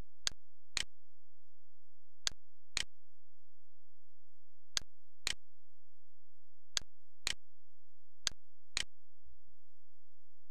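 Computer mouse button clicking in pairs, each pair about half a second apart, five pairs in all, over a steady low hum.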